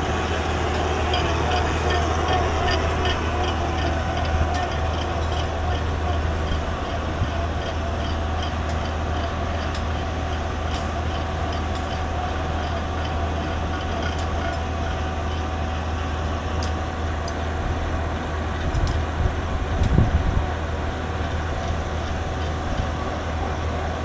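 Tracked soil-nail drill rig running steadily while drilling, a constant engine and hydraulic drone with a regular light ticking through the first half. A brief low thump about 20 seconds in.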